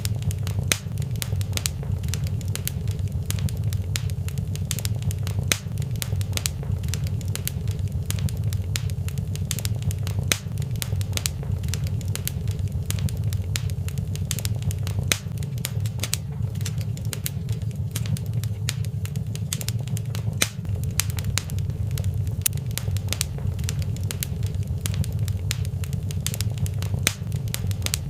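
Wood fire burning in a fireplace, crackling with many small, irregular sharp pops over a steady low rumble.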